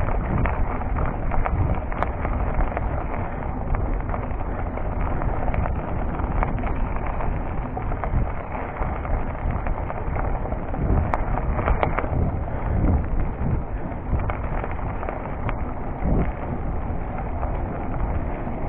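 Cube Stereo full-suspension mountain bike riding over a dirt and gravel forest trail, heard through a chest-mounted action camera. Tyre rumble and wind on the microphone go on throughout, with frequent irregular knocks and rattles from the bike over bumps.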